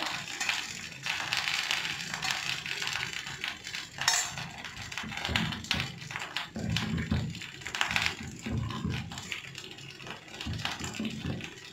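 A steel spoon and ladle clinking and scraping against a stone pot as curd is spooned in and stirred, with irregular light taps and one sharper click about four seconds in.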